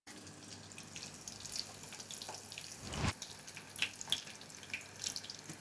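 Battered onion rings deep-frying in hot vegetable oil in a stainless steel saucepan: a steady sizzle with scattered crackling pops, and one dull thump about three seconds in.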